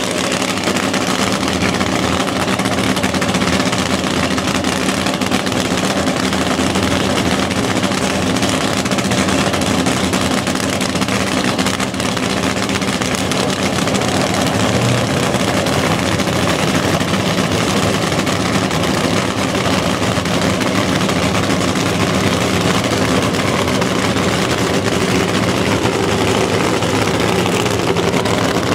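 Nostalgic nitro funny car's engine idling steadily and loudly, with no revving, while the car is warmed up with its body raised.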